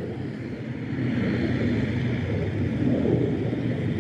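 Wind buffeting the microphone over the steady, faint running of a distant tractor engine.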